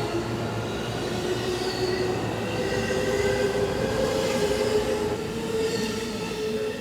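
JR West 223 series 2000-subseries electric train pulling away, its traction motors and inverter giving a whine that rises slowly in pitch as the train accelerates, over steady rolling rail noise.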